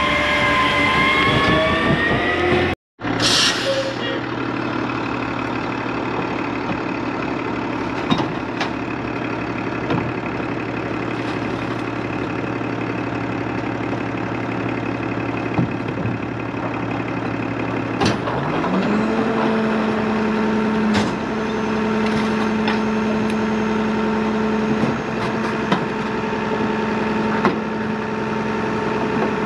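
Diesel garbage truck engines. First a side-loader passes with its engine pitch shifting, then after a break a rear-loader idles steadily with scattered knocks. About two-thirds of the way in, its engine speeds up and holds a higher steady pitch.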